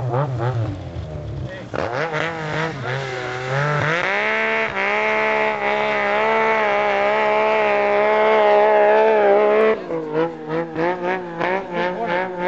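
Snowmobile engine running hard at high revs. Its pitch wavers at first, then holds high and steady for several seconds before breaking into quick choppy bursts as the throttle is worked on and off near the end.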